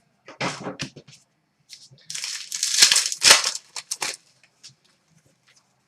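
Plastic trading-card pack wrapper being crinkled and torn open: a few short rustles, then a longer burst of crinkling about two seconds in.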